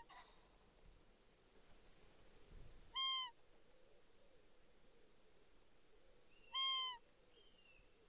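A short, high call that rises slightly and then falls in pitch, given three times about three and a half seconds apart.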